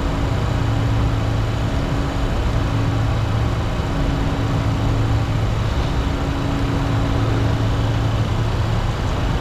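Steady cockpit noise of a Bombardier Challenger 604 climbing after takeoff: a constant rush of airflow with the drone of its twin General Electric CF34 turbofans at climb power. A low hum and a second, higher hum hold steady throughout.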